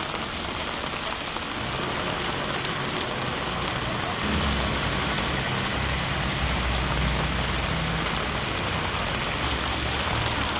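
Steady rain falling on a wet paved street, an even hiss of drops. About four seconds in, the low hum of a vehicle engine joins underneath.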